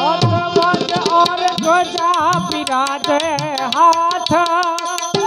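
Live Hindu devotional bhajan: a singer holds a wavering, ornamented melody without clear words, over a harmonium, with regular hand-drum and small-cymbal strikes.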